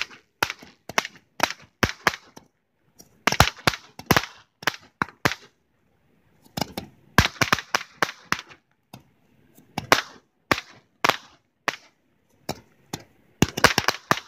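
Several Red Apple Roman candles firing at once: a long, irregular run of sharp pops as each tube shoots out its balls, coming in clusters with a pause of about a second near the middle.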